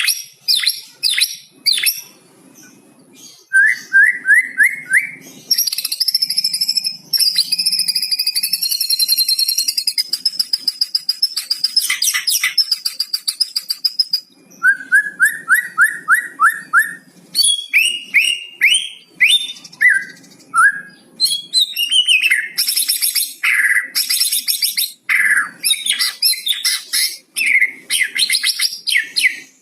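White-rumped shama (murai batu) singing a varied song laced with learned cucak cungkok phrases. It has quick runs of rising whistled notes, a long buzzy high trill lasting several seconds, and bursts of sharp chirps and whistles.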